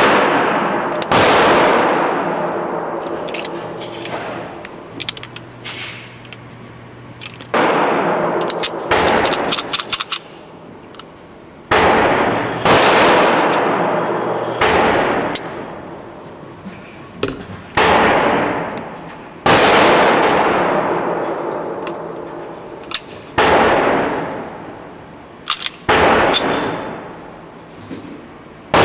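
9mm pistol shots at an indoor range: about a dozen sharp cracks at uneven intervals, some in quick pairs, each followed by a long fading echo.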